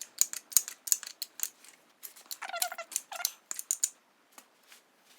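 Irregular sharp metallic clicks from a wrench turning a threaded case-splitting tool as it forces apart a VW Type 1 1600 engine crankcase, with two short squeaks a little after halfway.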